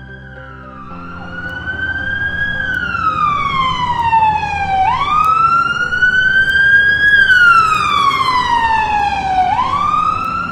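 Ambulance siren wailing: the pitch sweeps up quickly and then falls slowly, repeating about every four to five seconds, over a low traffic rumble. It grows louder as the ambulance approaches, peaking a little past the middle.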